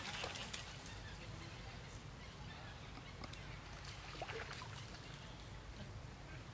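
Water splashing as a young monkey thrashes at the edge of a pond, dying away within the first half-second, followed by a few faint splashes as it wades back into the water.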